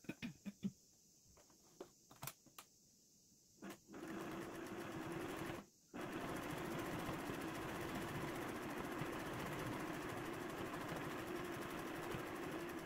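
Household sewing machine stitching a folded denim strip, running steadily from about four seconds in with a short stop near six seconds. Before it starts, a few light clicks and taps as the fabric is set under the presser foot.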